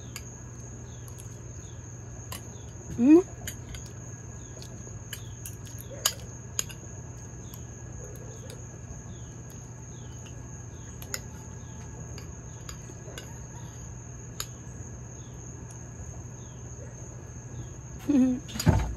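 Insects trilling steadily on one high pitch, with a few light clicks of a metal spoon against a ceramic bowl. A short rising hum about three seconds in and a thump near the end are the loudest moments.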